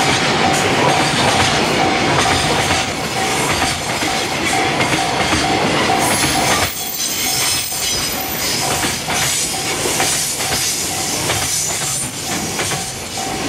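Loaded container wagons of a freight train rolling past, wheels clattering over the rail joints. The heavy rumble thins about halfway through as the end of the train comes by, and an evenly pulsing high tone sounds behind it throughout.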